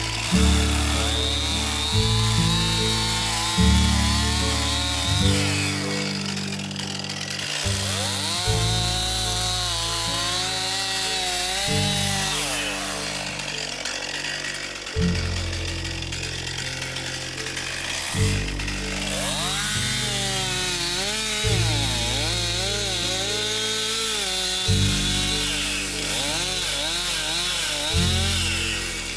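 Background music with a steady beat and changing bass notes. Beneath it, a Stihl MS261 two-stroke chainsaw cuts through small trees, its high whine dropping in pitch as it loads in the cut a few times.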